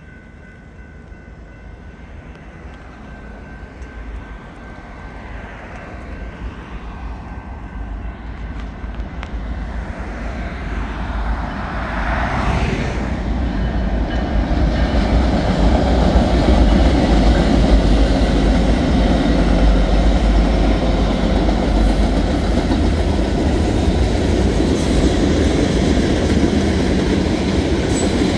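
BNSF freight train led by three EMD SD70ACe diesel-electric locomotives, with two-stroke diesel engines, approaching and passing. The low rumble grows steadily louder over the first fifteen seconds or so, then stays loud as the freight cars roll by with wheels clacking over the rail joints.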